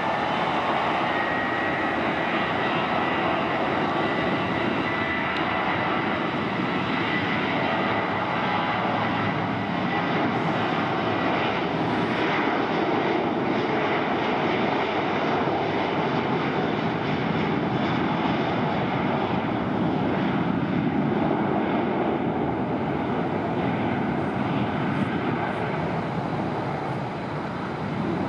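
Boeing 737-800's twin CFM56-7B turbofan engines at takeoff thrust: a steady jet rumble as the airliner rolls down the runway and lifts off near the end.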